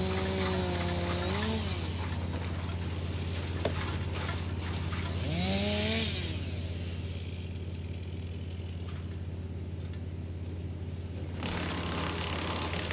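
Wood chipper running steadily with a deep engine hum, chewing up wood. A whine climbs in pitch twice, about a second and a half in and again around five to six seconds, with a burst of chipping noise at the second. After that the chipping dies down and picks up again near the end.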